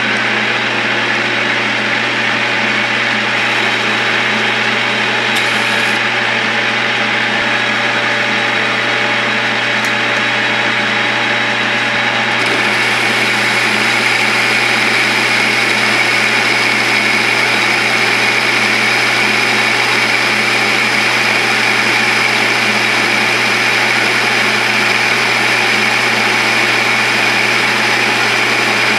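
South Bend lathe running at about 800 RPM while a CCMT carbide insert takes a 40-thousandths turning cut in rifle-barrel steel at a very slow feed: a steady motor hum under a continuous cutting hiss. The higher hiss grows stronger about twelve seconds in.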